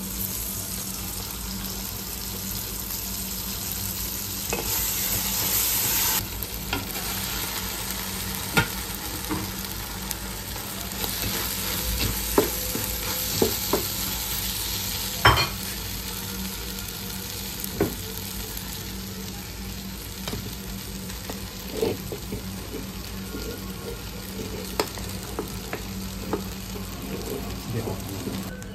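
Rice, sausage and onion frying in an aluminium pot, a steady sizzle that swells a few seconds in, while the rice is stirred in with a wooden spatula. Short sharp knocks of the spatula against the pot come every few seconds.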